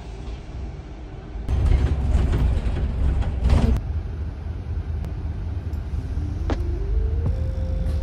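Double-decker bus heard from inside on the upper deck: a low engine rumble that swells about a second and a half in, with rattles. Near the end, a whine rises in steps and then holds steady as the bus pulls away.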